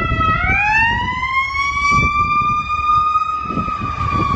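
Emergency vehicle siren wailing as it passes. Its pitch dips, climbs slowly over about three seconds, then begins to fall again, over the rumble of street traffic.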